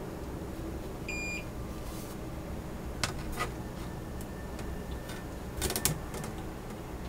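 A single short electronic beep from bench equipment about a second in, then light clicks and taps as a printed circuit board is handled and set down on a silicone work mat, over a steady low hum.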